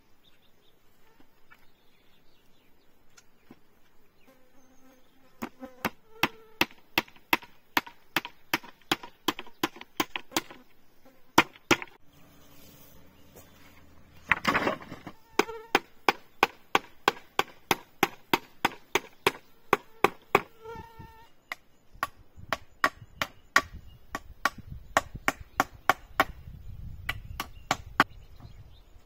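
Rapid, evenly spaced tool strikes on wood, about three a second, starting a few seconds in and pausing briefly about three-quarters of the way through before resuming.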